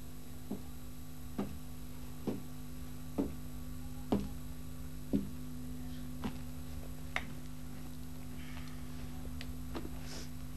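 Slow, even ticking, about one tick a second, that grows louder and then fades away after about seven seconds, over a steady low electrical hum.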